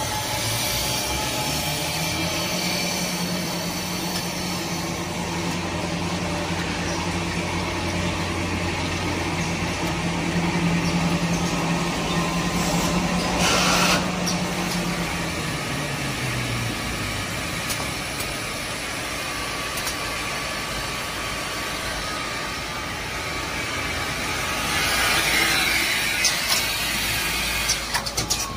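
Tissue-paper converting and packing machinery running on a factory floor: a steady mechanical din with a low motor drone that fades out after about seventeen seconds. A short hiss about fourteen seconds in, and busier clattering and hissing near the end.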